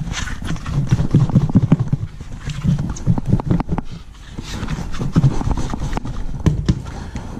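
Walleye fillets and dry batter being shaken hard in a lidded plastic Batter Pro shaker: rapid, irregular thumping and rattling of the fillets against the container walls, easing briefly about halfway through.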